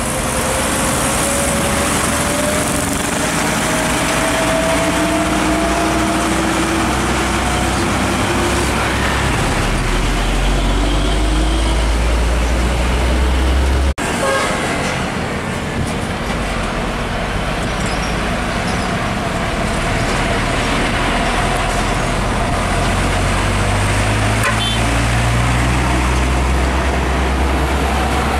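Diesel trucks driving past: an old Mitsubishi Fuso truck's engine running hard with a slowly rising whine over the first several seconds and a deep rumble building, then, after a sudden cut, a Hino car-carrier truck's diesel engine rumbling as it passes, with road traffic around it.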